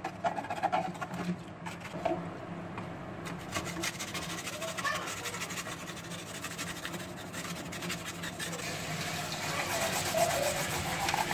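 Brushes scrubbing a mini TV's plastic cabinet parts in a basin of soapy water, a run of quick scratchy strokes that grows a little louder near the end.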